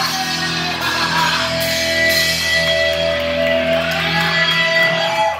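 Live heavy rock band playing through a club PA, distorted electric guitar holding long sustained notes over the band. The sound cuts off abruptly at the end as the song finishes.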